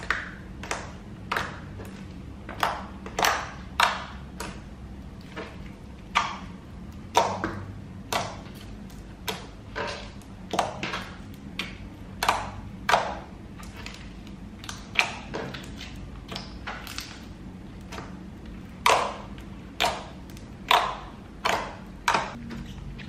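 Slime being squeezed and poked by hand, giving a string of sharp clicks and pops at an irregular pace of about one or two a second.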